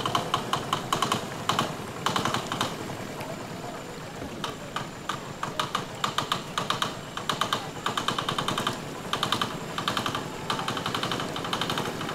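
Long-tail boat engine running with a rapid putt-putt of about ten beats a second, coming and going in spells as the boat passes.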